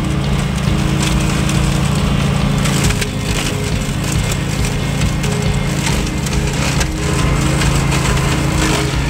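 Etesia Attila AK98X ride-on brushcutter running steadily while its cutting deck shreds woody scrub, with dense crackling and snapping of stems over the engine.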